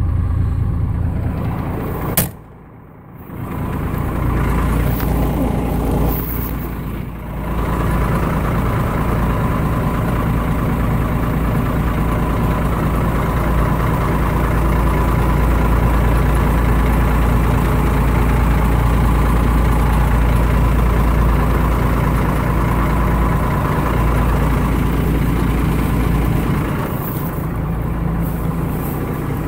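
1987 Ford F800's 7.8-litre inline-six diesel idling steadily, heard from beneath the truck, with a sharp click about two seconds in.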